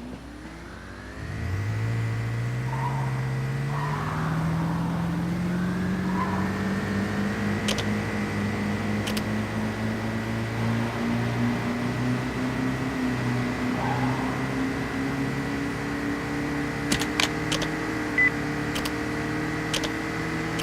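A motor vehicle's engine running: its pitch glides up about a second in, falls and climbs again around five seconds in, then keeps rising slowly, as when the vehicle gathers speed. A few short clicks come near the end.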